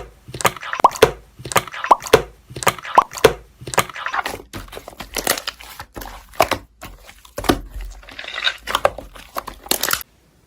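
Slime being squeezed and worked by hand, a rapid run of wet clicks and crackling pops, about two to three a second, cutting off suddenly near the end.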